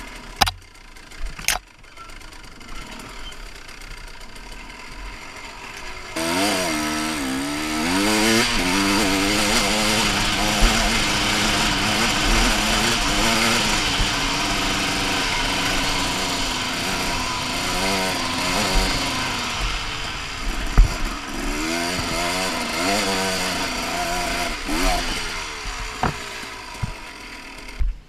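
Two-stroke Husaberg TE 300 enduro bike engine heard from the rider's helmet camera, its pitch rising and falling over and over as the throttle is worked on the trail. It is quieter for the first six seconds, with two sharp knocks near the start, then revs hard for most of the rest.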